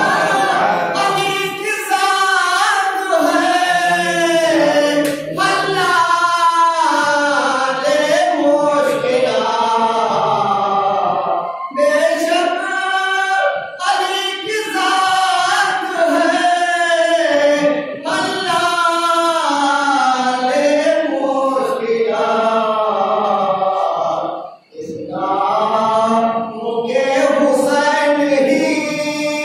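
A man singing a melodic Shia mourning recitation into a microphone through a PA: long, wavering held phrases with short breaks between them, and one brief pause a few seconds before the end.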